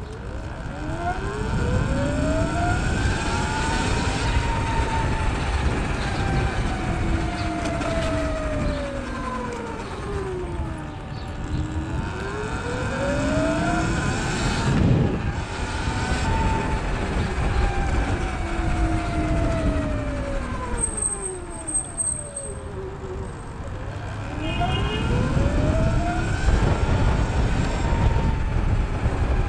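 Emergency vehicle siren in a slow wail, its pitch rising and falling in long sweeps of about twelve seconds each. It peaks about four seconds in and again near the middle, then climbs once more near the end. A steady low rumble of traffic and wind runs beneath it.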